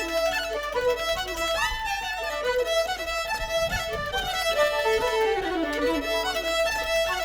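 Background music: a lively traditional Irish fiddle tune, with quick runs of notes at a steady dance pace.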